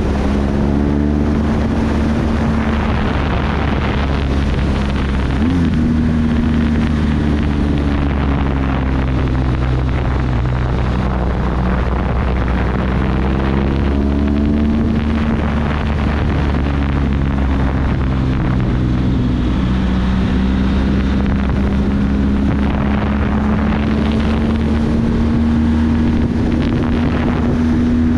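Motorcycle engine running at road speed, its note rising and falling several times as the throttle changes, with wind rushing over the microphone.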